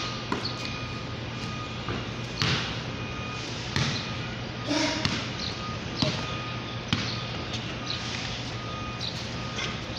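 Basketball bouncing on a concrete floor: sharp, irregular thuds roughly a second apart over a steady background of distant voices and a low hum.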